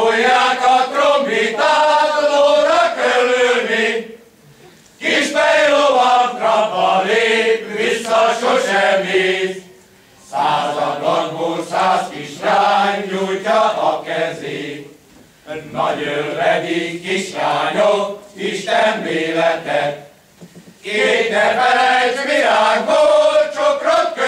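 Hungarian men's folk choir singing a folk song together, in phrases of about four to five seconds, each followed by a short breath pause.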